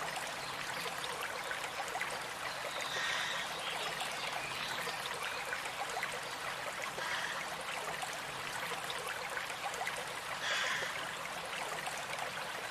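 Running water of a stream trickling steadily.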